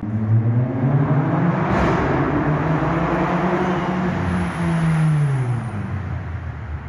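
Mercedes-Benz A45 AMG's turbocharged 2.0-litre four-cylinder, tuned to HG Performance Stage 2 with an F1 exhaust, driving hard up a road tunnel and past. The engine note climbs in the first second or two, holds steady, then drops away about five to six seconds in as the car goes by.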